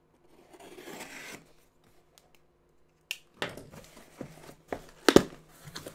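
A blade slitting the packing tape on a cardboard shipping box, a soft scraping hiss for the first second and a half. From about three seconds in, the tape tears and the cardboard flaps are pulled open with rustles and clicks, and a sharp knock about five seconds in is the loudest sound.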